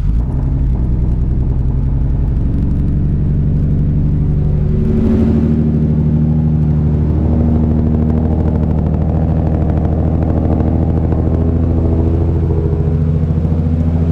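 Nissan Skyline R33's freshly built, big-turbo RB25DET straight-six running steadily at idle just after being fired up. Its note shifts slightly about five seconds in.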